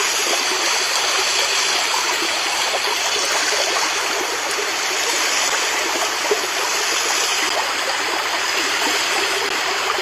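Water rushing steadily as it swirls down a large whirlpool in a round well.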